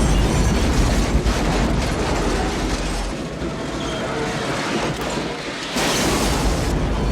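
Loud, continuous mechanical rumbling and rattling from a film soundtrack, easing a little in the middle and swelling again near the end.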